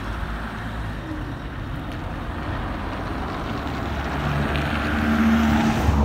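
Engines of city minibuses running as they pull away across a car park. The hum is steady and grows louder in the last couple of seconds.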